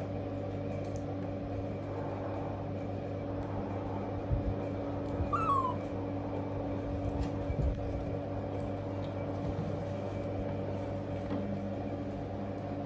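A baby macaque gives one short squeak, falling slightly in pitch, about five seconds in. A few soft knocks of plastic toys on a wooden floor come around it, over a steady hum.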